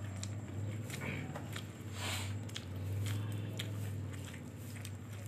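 Close-up mouth sounds of a person chewing food: scattered small clicks and wet smacks, over a steady low hum.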